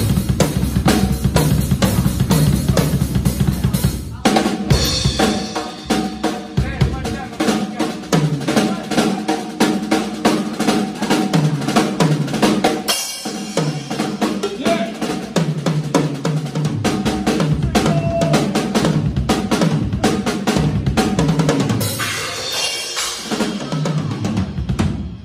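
Acoustic Tama drum kit played solo: rapid strokes throughout. The first four seconds are dominated by heavy bass-drum hits, then fast fills run around the drums with snare and rimshots. Cymbals wash in near the end before the playing cuts off suddenly.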